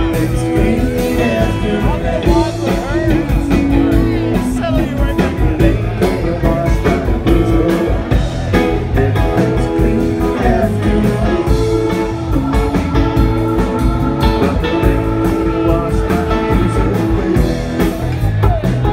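Live rock band playing a song on drum kit, electric guitar, bass and keyboards, loud and steady with a regular drum beat, heard from among the audience in a club.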